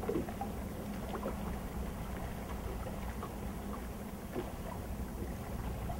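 Steady low wind and water noise around a small fishing boat on open water, with a faint steady hum and a few faint light ticks.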